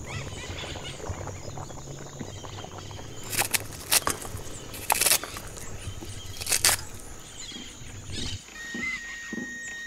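Outdoor rural soundscape: birds chirping over a steady high insect whine, with four short, loud, harsh sounds in the middle. A low hum stops near the end and a steady high tone begins.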